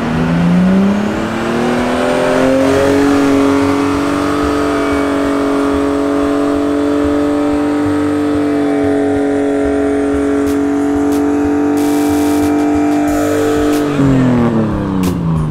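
Nissan Skyline R33's RB straight-six, breathing through an aftermarket exhaust, revved up from idle over about three seconds. It is held at a steady 6,000-odd rpm, then let back down toward idle near the end.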